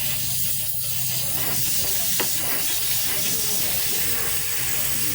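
Steady hiss with a faint low hum underneath and a single brief click about two seconds in.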